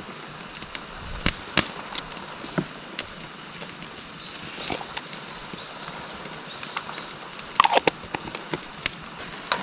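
Small clicks and taps of seasoning bottles and their caps being handled at a pot on a portable gas stove, with a quick cluster of taps near the end. A steady hiss runs underneath, and a run of short high chirps comes in the middle.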